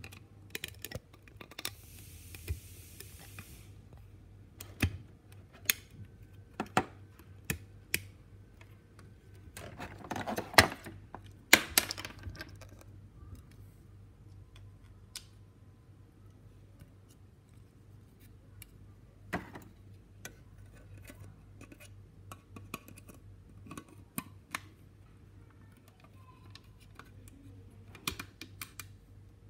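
Hollow plastic model airliner and its clear plastic blister tray being handled: scattered clicks, taps and crinkles, with a louder burst of crackling plastic about ten to twelve seconds in. A faint steady hum lies underneath.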